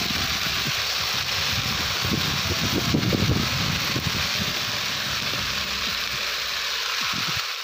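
Shredded fresh cabbage sizzling with a steady hiss as it lands in a hot cast-iron kazan of frying sauerkraut. About two to four seconds in, it grows louder with a rustle as the cabbage is shaken out and pressed down by hand.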